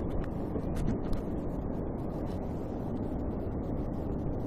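Steady low rumble of wind on the camera microphone, with a few light clicks about a second in.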